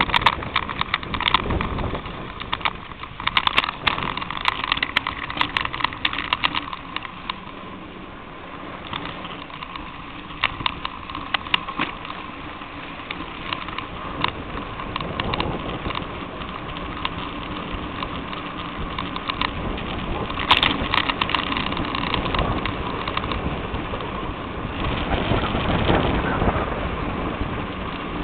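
Riding noise picked up by a camera on a moving bicycle: rattles and clicks as it runs over the path, over a steady rush of wind and tyre noise. The clicking is densest in the first several seconds and again about two-thirds of the way in, and the rush grows louder near the end.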